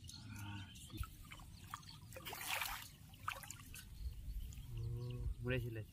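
Shallow paddy water splashing and trickling as hands reach and grope in it, with one louder splash about two and a half seconds in. Short pitched calls come briefly near the start and again near the end.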